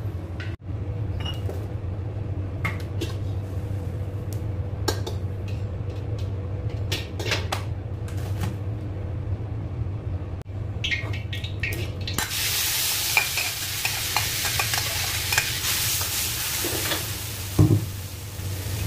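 Clicks and clinks of kitchen utensils over a steady low hum, then, about twelve seconds in, red chili sambal paste starts sizzling loudly in hot oil in a wok as a metal spatula stirs it, with a single knock near the end.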